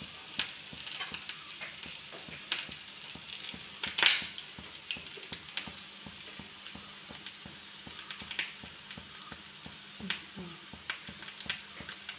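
Samosas deep-frying in hot oil: a steady sizzle with scattered crackles and pops, one louder pop about four seconds in.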